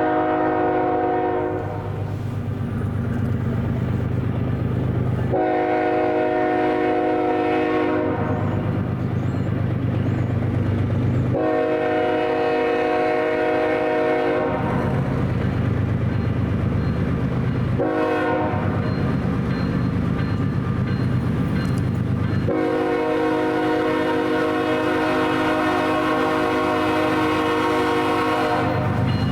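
Diesel locomotive's multi-chime air horn blowing the grade-crossing signal: long, long, short, long, the first blast already sounding as it begins. Between blasts the low rumble of the passing train fills in.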